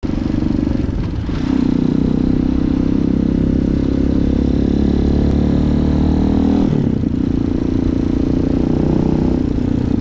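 Tbr7 dual-sport motorcycle's engine running steadily while being ridden, heard from the bike itself. Its note dips briefly about a second in and changes again near seven seconds in, as the throttle is eased and picked up.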